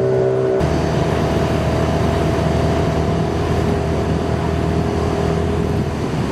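Small fishing boat's motor running steadily, with a noisy wash of water and wind around it. Its note changes abruptly about half a second in.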